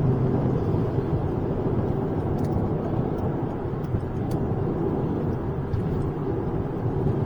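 Turbocharged Volvo C30 being driven, with steady engine and road noise. The turbo has a boost leak and is barely making 5 psi of boost.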